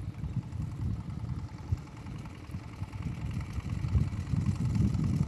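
Wind buffeting the microphone: an irregular low rumble that rises and falls in gusts.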